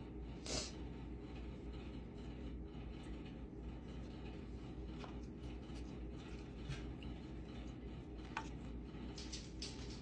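Small handling noises as wires and a circuit board are worked on a bench: a few light clicks and scrapes, the sharpest about half a second in and a quick run of them near the end, over a steady low hum.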